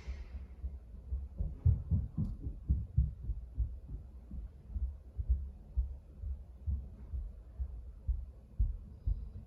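Heavy running and stomping footsteps on the floor of the flat above, heard through the ceiling as low, muffled thuds. They come about three or four a second, and are heaviest between about one and a half and three seconds in.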